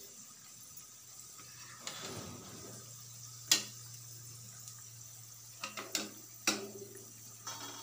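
Cabbage masala vadas deep-frying in hot oil in a steel kadai, a steady sizzle, with several sharp clinks of a metal slotted spoon against the pan as the golden, done vadas are scooped out; the loudest clink comes about three and a half seconds in. A low steady hum starts about two and a half seconds in.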